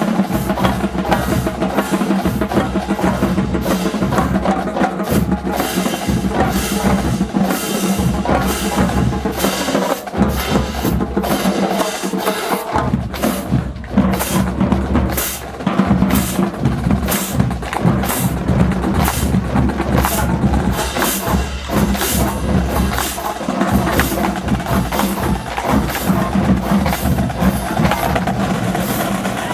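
Marching band drumline playing a fast drum cadence of dense, rapid strokes over a steady low drum pulse.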